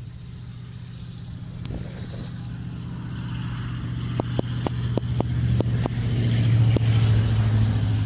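An engine running steadily and growing louder towards a peak near the end. A quick series of sharp clicks comes in the middle.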